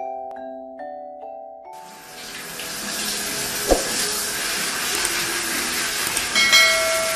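A few chiming music notes, then from about two seconds in a steady rush of running water in a tiled bath, with a single sharp click in the middle and a short chime near the end.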